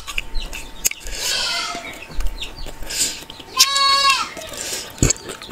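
A goat bleating once, a drawn-out wavering call about two-thirds of the way in, over the chewing and mouth sounds of someone eating puri with curry.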